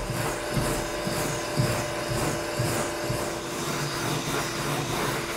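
Shop vacuum (a Fein) running steadily as dust extraction through a hose on the sanding tool, with an irregular rubbing of sandpaper strokes on the epoxy-and-fiberglass-coated kayak coaming.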